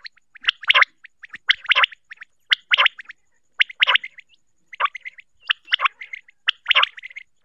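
Common quail (batair) calling: short call notes repeated about once a second, some followed by fainter notes.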